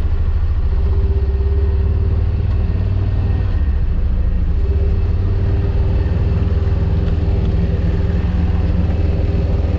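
A vehicle engine running steadily: a low, even drone with a faint constant hum above it.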